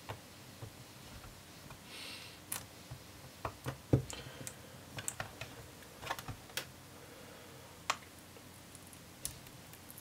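Plastic pry tool clicking and tapping against a laptop's plastic base while working under a rubber foot strip: a dozen or so sharp, irregular clicks, the loudest about four seconds in.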